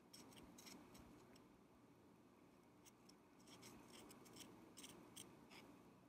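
Faint, light ticks and scrapes of a thin metal rod against the inside of a glass candle jar. They come in two clusters, one near the start and one from about three to five and a half seconds in.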